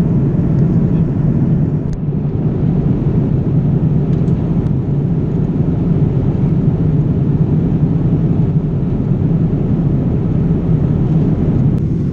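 Steady cabin noise of a Boeing 787 Dreamliner in cruise, heard from inside the cabin: an even, deep rush of airflow and engine noise.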